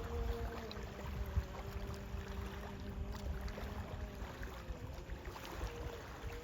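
Distant azaan, the Islamic call to prayer: a man's voice holding one long, slowly wavering note. Under it runs a steady low rumble of wind on the microphone and surf.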